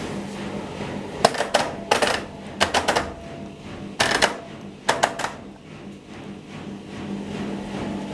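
Bauknecht WA 9350 washing machine: a steady low hum with five short bursts of rapid clicking and clattering in the first five seconds, then just the hum.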